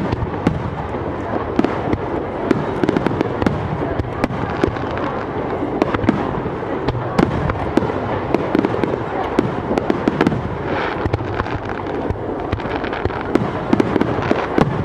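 Aerial fireworks bursting in quick succession: many sharp bangs and crackles over a continuous rumble, with no pause.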